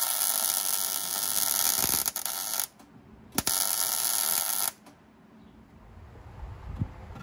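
Electric arc welding on steel floor framing: a steady crackling hiss in two welds, the first stopping about two and a half seconds in, the second after a short pause lasting about another second, then the arc goes quiet.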